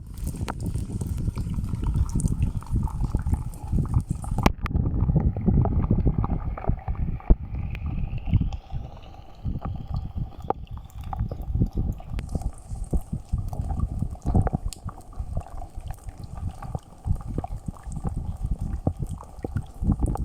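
Rain falling close by, heard as dense irregular pattering and knocking of drops over a low rumbling undertone. About midway a faint rising whistle-like tone passes under the rain.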